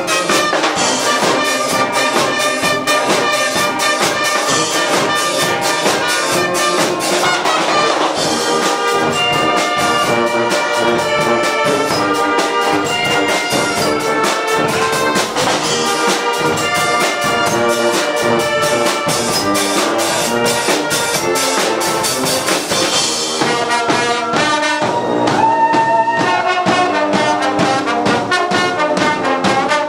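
Guggenmusik brass band playing loudly: trumpets and trombones carry the tune over a steady, driving drum beat.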